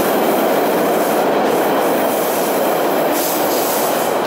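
MBTA Orange Line subway train pulling out of an underground station: a steady, loud rumble and clatter of wheels on rail.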